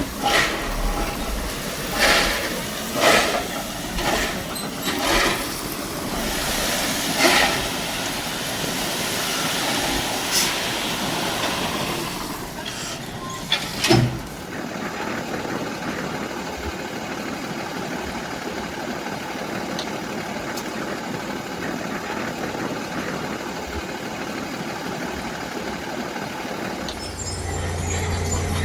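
Heavy earthmoving machinery at work on gravel: a run of sharp clanks and knocks over steady machine noise, with a loud knock about halfway through. After that comes a steadier, even engine-like noise, and near the end a deeper hum.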